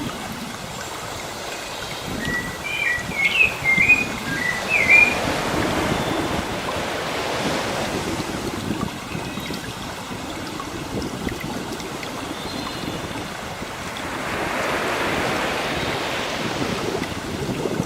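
Sea waves washing on a shore, swelling and falling back in slow surges every several seconds. A bird sings a short run of quick chirping notes a couple of seconds in.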